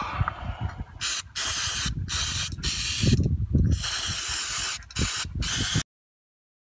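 Aerosol can of brake cleaner hissing in a run of short spray bursts, each a second or less, with brief gaps between. The sound cuts off suddenly near the end.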